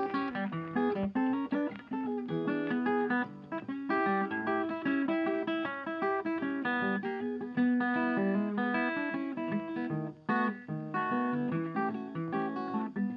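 Background music: guitar playing a quick run of plucked notes.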